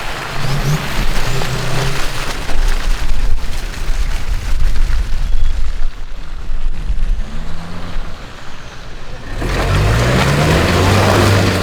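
Off-road 4x4's engine running under heavy rumble and buffeting on the microphone. About nine seconds in, the sound switches abruptly to a steadier, louder engine hum.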